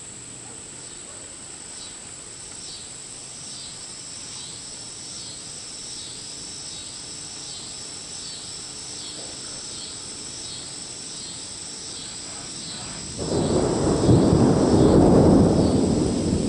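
A clap of thunder about thirteen seconds in: a sudden loud, deep rumble that swells for a couple of seconds and then fades. Before it there is a steady hiss of rain, with a high chirp repeated about twice a second.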